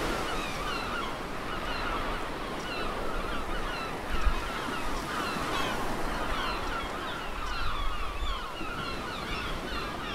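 A large flock of birds calling over one another, many short overlapping honking calls, over a steady wash of surf and wind. There is a low thump about four seconds in.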